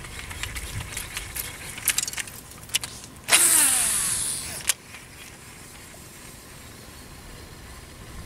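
Fishing reel casting: a few light ticks, then the spool spinning fast as line pays out, a loud hiss with a whine falling in pitch for about a second and a half, stopped by a sharp click.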